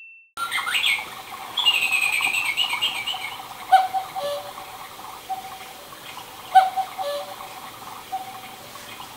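Quartz mini cuckoo clock sounding its recorded cuckoo call: a falling two-note "cuck-oo" repeated about every three seconds, each followed by a fainter echo, over recorded chirping birdsong and a steady hiss. It starts suddenly about half a second in.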